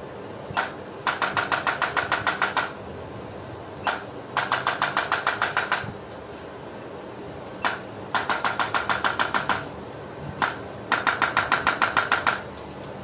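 Chiropractic adjusting gun firing four times: each time a single click, then an even train of about a dozen rapid clicks, about eight a second, lasting about a second and a half.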